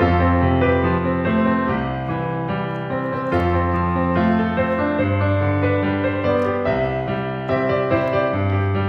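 Background piano music: sustained chords over a steady bass line.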